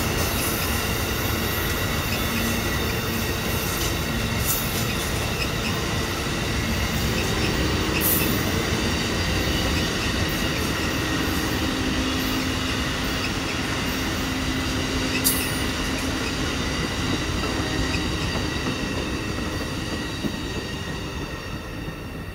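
Amtrak passenger cars rolling past on steel rails: a steady rumble of wheels with a high, steady ringing squeal from the wheels and a few sharp clacks. It fades in the last couple of seconds as the end of the train goes by.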